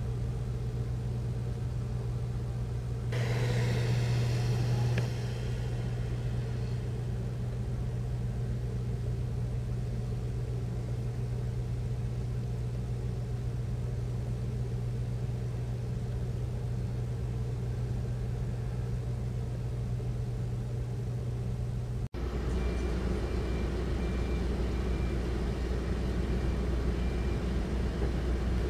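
Steady low engine hum with a strong low drone. A brief louder noise lasts about two seconds, starting about three seconds in. After a break about two-thirds of the way through, the hum is deeper and louder.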